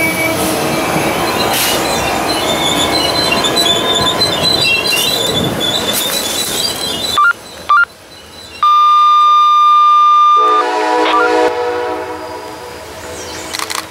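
Amtrak passenger cars rolling past close by, the wheels squealing on the rail. Then, about halfway through, the train's horn sounds loud and steady, followed by a second blast on a chord of several notes, fading away as the train recedes.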